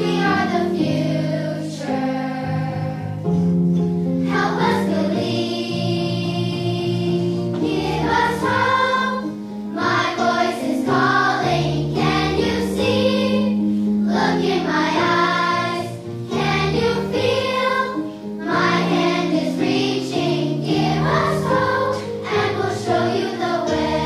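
Elementary school children's choir singing.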